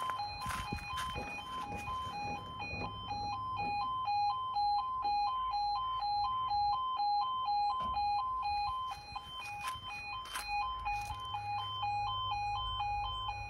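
Level crossing audible warning alarm sounding a steady electronic two-tone warble, switching evenly back and forth between two pitches, while the barriers lower for an approaching train.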